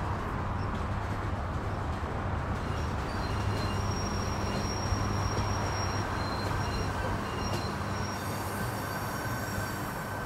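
Light-rail train running along an elevated track: a steady low rumble, with thin high wheel squeals coming and going from about three seconds in.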